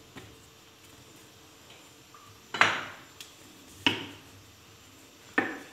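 Rolling pin knocking against a granite countertop while dough is rolled out: three sharp knocks, about a second and a half apart, with a few faint taps before them.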